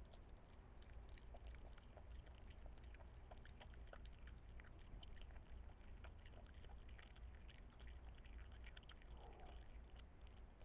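Faint, irregular clicks of an opossum chewing chicken close to the microphone, over a steady high hiss.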